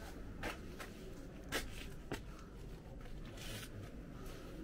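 A few short scrapes and rustles over low steady background noise, with a longer rustle about three and a half seconds in.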